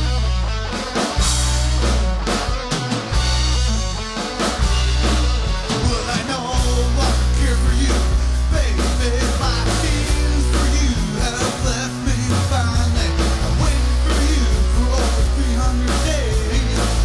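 Rock song played on electric guitars, bass and drum kit.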